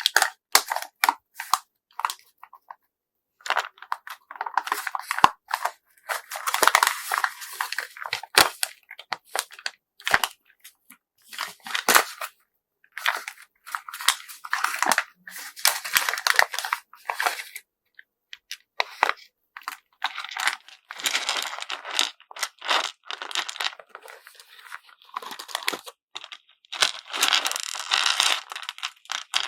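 Hands packing beads into handmade tetrahedral packaging: stop-start crinkling and rustling of the wrapping, broken by small clicks and taps.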